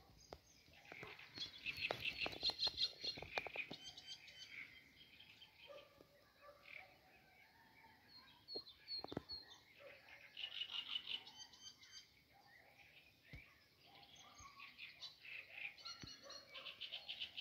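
Small birds singing in three bursts of quick repeated notes, with a few separate chirps between them.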